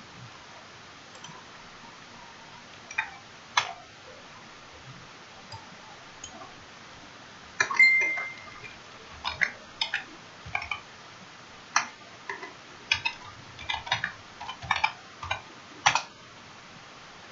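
Computer keyboard being typed on, as irregular key clicks: a few single clicks in the first half, then a denser run of keystrokes from about nine seconds in.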